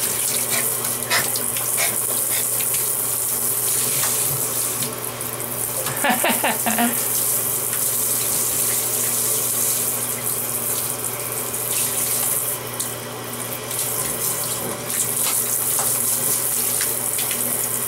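Water spraying steadily from a handheld shower head onto a puppy in a bathtub, with a short pitched sound about six seconds in.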